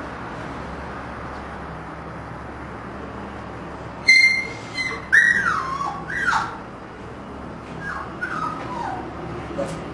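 Siberian husky puppy yelping and whining: a sharp high yelp about four seconds in, then a few cries that fall steeply in pitch, with fainter whimpers near the end.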